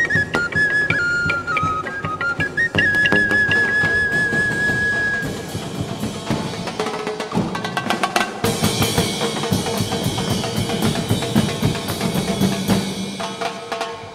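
Live street-dance music from a flute and drum ensemble: a flute plays a melody and holds a long wavering note over drumming, then the drums and percussion grow busier and louder from about eight seconds in.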